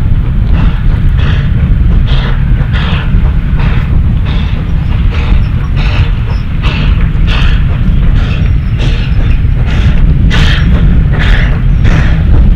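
Nevada Northern #81, a 2-8-0 steam locomotive, working steam and exhausting in a steady chuff, about two beats a second, louder toward the end as it draws near. A heavy low rumble runs under the chuffs.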